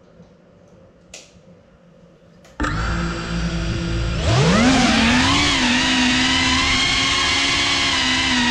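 Small ducted FPV cinewhoop drone (GEPRC Cinelog 35) starting up: its motors jump to idle spin about a third of the way in. About halfway they spool up with a rising whine, then hold a steady high-pitched whine as the drone lifts off and flies. A faint click comes shortly before the motors start.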